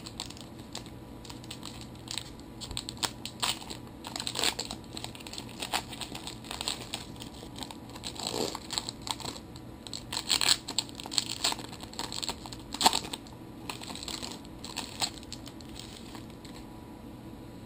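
Trading-card pack wrapper being torn open and handled, crinkling and crackling in irregular bursts with small clicks, dying away near the end.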